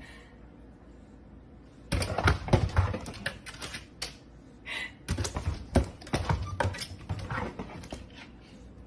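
Rapid clicking and tapping in two bursts, one starting about two seconds in and another from about five seconds on.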